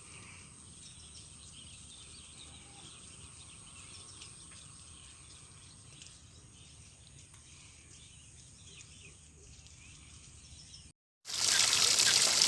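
Quiet rural ambience: a steady high-pitched insect drone with scattered short chirps. About 11 seconds in the sound cuts out and loud rushing floodwater takes over.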